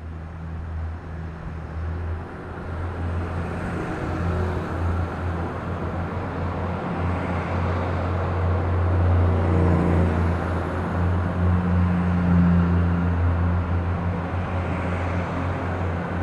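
A steady low engine drone under a broad rushing noise, swelling somewhat louder about two-thirds of the way through.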